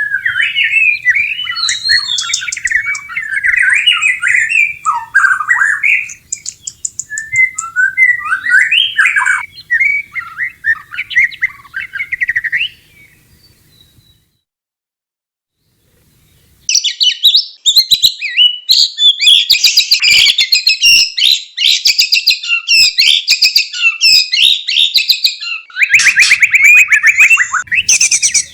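White-rumped shama singing in varied, quick whistled phrases for about twelve seconds. After a short gap of silence comes a fast, dense rattling chatter, the call that bird keepers name kretekan.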